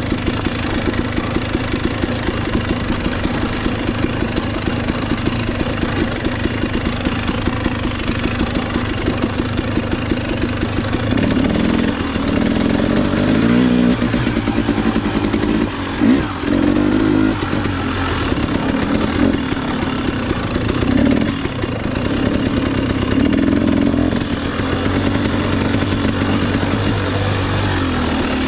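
KTM 300 XC-W's two-stroke engine running at low revs on the trail, then revving up and down under throttle from about a third of the way in, with a few brief drops where the throttle is shut.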